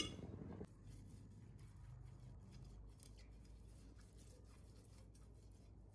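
A pastry brush swept back and forth over a glass baking dish, spreading oil to grease it: faint, quick brushing strokes.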